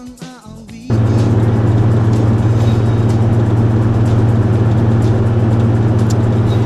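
A song with singing cuts off about a second in, giving way to the steady drone of a car at highway speed heard from inside the cabin: a strong low engine hum with road and wind noise.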